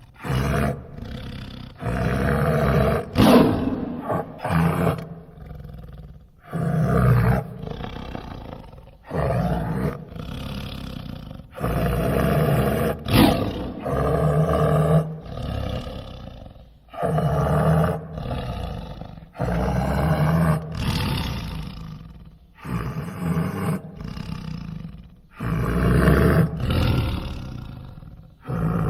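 Big-cat roar sound effects made to stand for a Pleistocene tiger: about a dozen separate roars and growls, each a second or two long, starting abruptly with short pauses between them.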